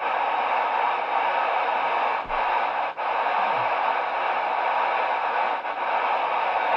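CB radio receiver hissing with steady open-channel static between transmissions, broken by two brief dropouts about two and three seconds in.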